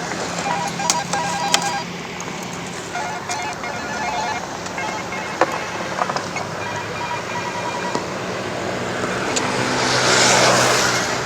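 A vehicle engine running steadily, with a string of short electronic beeping tones at a few fixed pitches and scattered clicks. A rushing hiss swells up about ten seconds in and fades.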